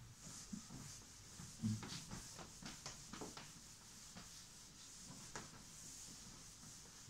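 Cloth duster wiping a whiteboard clean: faint rubbing swishes with scattered light knocks, the loudest about one and a half seconds in.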